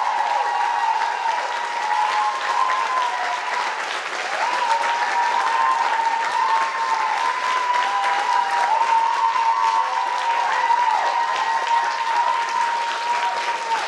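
Audience applauding, with long high whistles running through the clapping that dip and bend in pitch several times.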